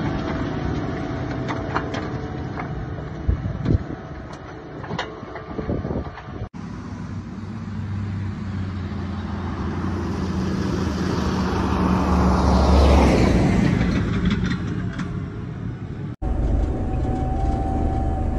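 JCB Fastrac tractor's diesel engine running in three clips, each cut off suddenly. First it runs steadily close by, with a few sharp knocks. Then it drives past along a track, swelling to its loudest about two-thirds of the way through and falling away. Last it is heard from inside the cab while driving.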